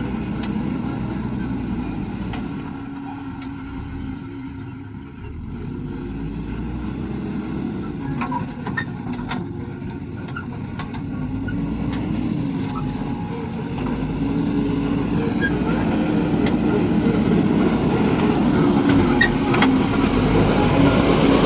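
JCB 3DX backhoe loader's diesel engine running steadily at working revs, its pitch wavering a little, with a few light knocks around the middle. It grows louder toward the end.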